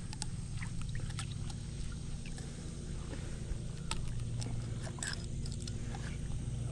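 A steady low engine hum under scattered small metallic clicks of long pliers working a hook out of an alligator gar's jaw.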